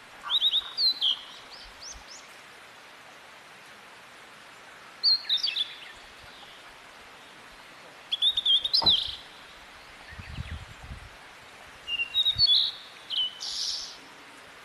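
A songbird singing short, rapid chirping phrases, four bursts a few seconds apart, over a steady background hiss.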